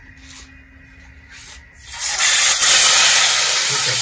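Chicken wings going into a pot of hot frying oil: a loud, steady sizzle starts suddenly about two seconds in and keeps going.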